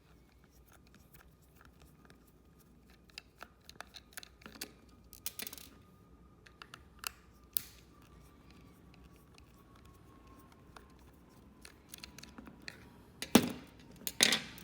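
Small screwdriver clicking and scraping as it turns the tiny screws in a plastic remote-control case, light scattered ticks, with two louder knocks near the end.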